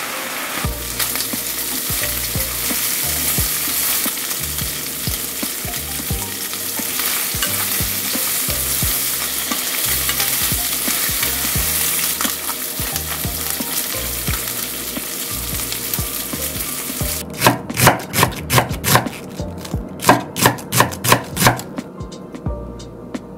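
Bacon and broccoli sizzling in a frying pan, stirred. About seventeen seconds in, the sizzling stops and a knife cuts shiitake mushrooms on a cutting board, about a dozen sharp chops in two quick runs.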